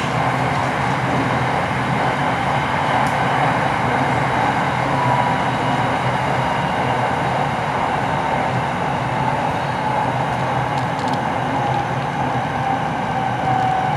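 SRT Red Line electric commuter train running steadily on the track, a continuous rumble and hiss with a faint high whine that comes and goes.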